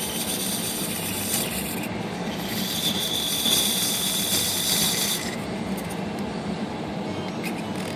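IBM Selectric typewriter's motor running while an X-Acto knife blade shaves material off the edge of the turning centre pulley hub: a steady scraping over a low hum, louder and hissier for a couple of seconds in the middle.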